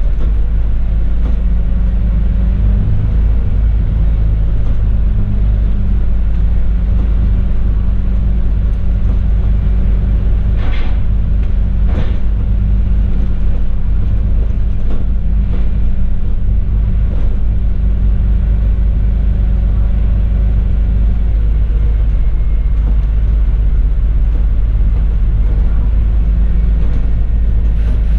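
Alexander Dennis Enviro400 MMC double-decker bus under way, heard from the upper deck: a steady low engine and road rumble whose engine note shifts a few seconds in and drops away past the middle. Two sharp rattling knocks come about a second apart near the middle.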